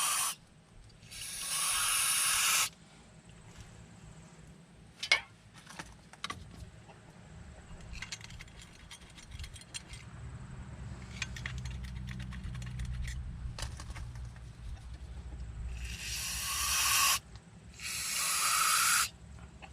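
Aerosol brake cleaner sprayed in three hissing bursts, one about a second in and two near the end, each a second or two long. A few sharp clicks and knocks of handling come between them.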